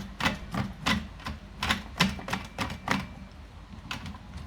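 Sharp, irregular plastic clicks and knocks, a quick run of them that thins out after about three seconds, as the reverse osmosis membrane housing cap is being closed.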